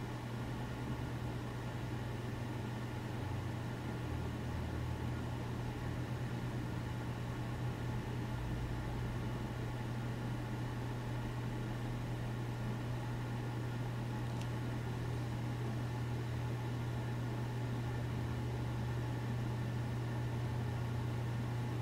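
A steady low hum with a faint hiss over it, unchanging throughout, with no other events.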